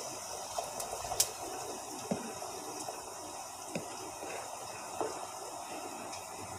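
Nihari gravy, thickened with a flour-and-water slurry, bubbling at a boil in a stainless-steel pot as a wooden spoon stirs it. A steady bubbling is broken by a few short pops or soft knocks.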